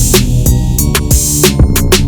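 Background music with a steady beat: drum-machine drums over a bass line.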